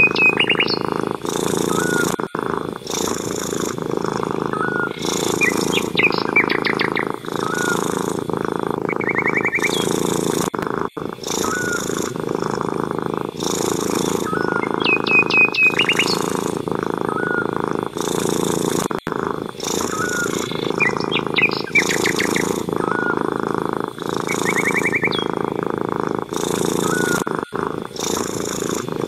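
A domestic cat purring steadily and closely, the purr swelling and easing in a regular rhythm about once a second. Small birds chirp and trill repeatedly over it.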